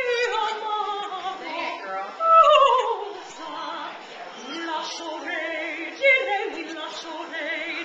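Puppy howling in long, wavering cries; the loudest, about two seconds in, slides down in pitch.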